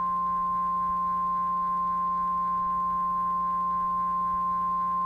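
NOAA Weather Radio warning alarm tone: one steady, unbroken high pure tone, the alert that comes before a watch or warning message. A fainter low hum runs beneath it.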